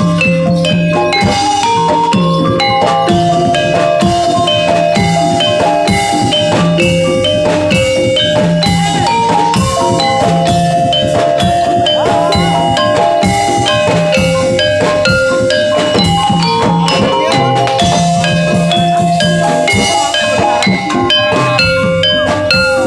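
Jaranan gamelan music played live: metal mallet instruments strike quick, steady melodic patterns over continuous hand-drum beats.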